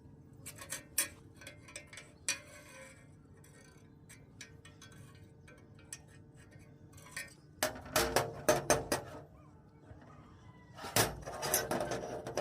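Steel pieces clinking and knocking against each other in irregular clusters, with the loudest run of knocks in the second half.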